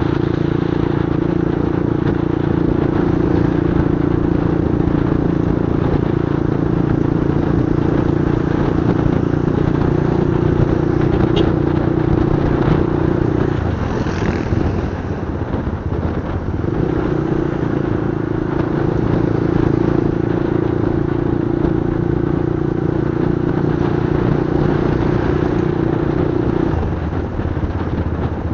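Motorcycle engine running at a steady cruise while riding, with a rushing noise over it. About halfway through the engine note drops away for a few seconds, then comes back, and near the end it falls to a lower note.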